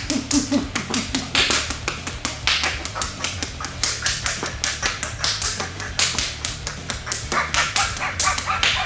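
Rapid series of fist punches landing on a bare, tensed abdomen, about three to four blows a second, each a sharp slapping impact on skin.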